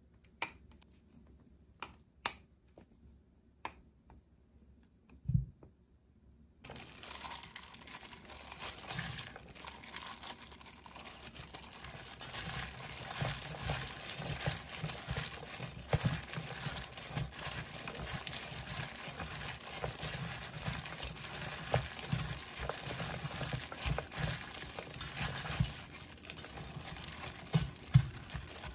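A few light taps and scrapes, then a plastic-gloved hand tossing dried squid strips with gochujang sauce in a stainless steel bowl: a steady crinkling and rustling of the glove and strips, with occasional knocks against the bowl.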